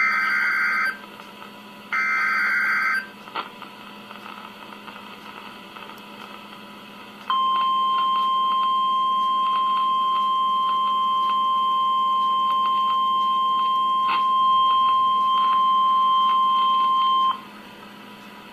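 NOAA Weather Radio Emergency Alert System signal: two screechy one-second bursts of the SAME digital header, then after a few seconds of radio hiss the steady 1050 Hz warning alarm tone holds for about ten seconds and cuts off, the signal that a warning message follows.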